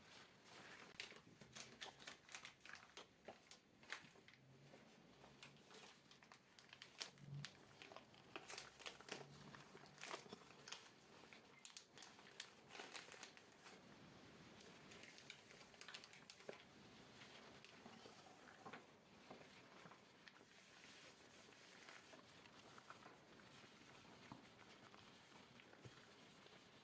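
Faint wiping and handling of desk items, with many small crinkling clicks and taps through the first half, settling into a quieter, steady rubbing hiss.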